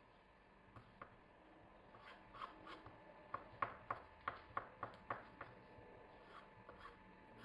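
Kitchen knife slicing through a tomato on a wooden cutting board: a run of soft taps as the blade meets the board, about three a second, loudest in the middle.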